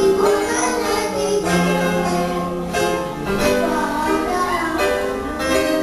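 A young girl singing solo through a microphone, accompanied by chords on an electronic keyboard.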